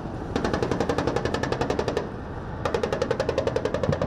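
Rapid automatic gunfire in two long bursts of about fourteen rounds a second, broken by a short pause about two seconds in.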